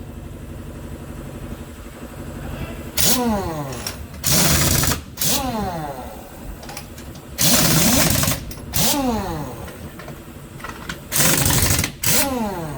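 Pneumatic impact wrench fired in several short bursts of hammering, each lasting under a second. After each burst its air motor spins down with a falling whine. A steady low hum runs underneath.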